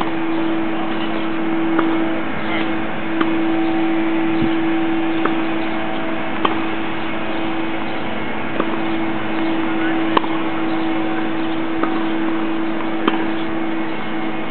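Tennis balls struck by rackets and bouncing in a rally: sharp single pops about every one to two seconds, over a steady low hum.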